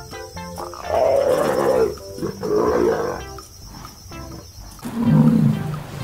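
Background music with a stepped melody, overlaid by two harsh animal roars about one and two and a half seconds in. Near the end the music cuts off and deep, low grunts of bison begin.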